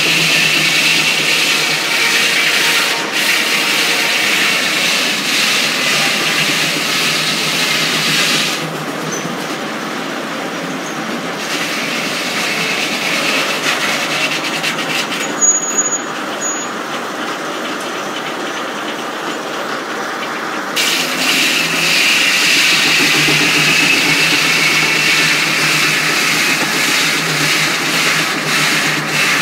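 Reeves circular sawmill running, its large blade sawing a log on the carriage, a steady high whine over machine rattle. The sound drops for about twelve seconds in the middle, losing the whine, then comes back.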